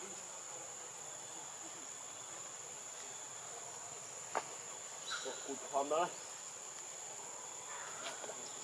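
Steady high-pitched insect drone in the forest, two constant whining tones. A single sharp click comes about four and a half seconds in, and a few short voice-like sounds follow between five and six seconds.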